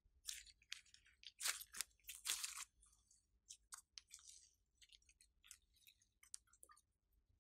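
Glossy slime being stretched, folded and squeezed by hand, giving faint, irregular sticky crackles, some in quick clusters.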